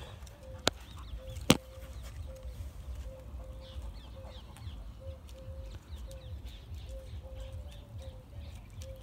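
Birds calling faintly in the background, a short call repeated over and over with scattered higher chirps, under a low rumble. About a second in come two sharp clicks, under a second apart, the loudest sounds here.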